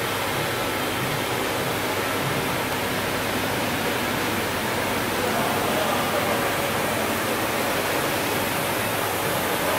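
Tablet counting and bottle packing line running: a steady, even mechanical noise from the machines, without a distinct rhythm or separate knocks.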